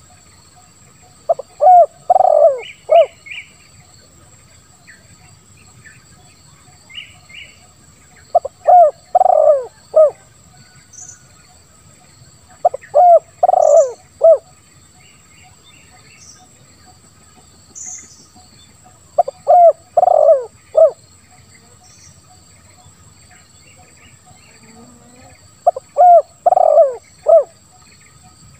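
Spotted dove (tekukur) cooing: five loud phrases of a few short, quick notes each, spaced about six seconds apart. Faint chirps of other birds and a steady high-pitched insect drone run underneath.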